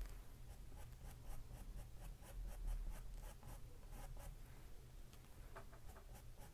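A paintbrush scratching faintly on canvas in quick, short strokes, several a second.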